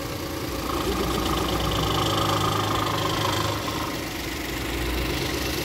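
Suzuki Alto 660cc three-cylinder engine idling just after starting, with the A/C off: running steadily at a stable rpm with no knocking. The engine note eases slightly about four seconds in.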